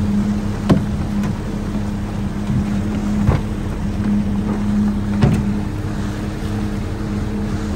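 Boat's outboard motor running at a steady pitch, with three sharp knocks: one just under a second in, one after about three seconds, and one past five seconds.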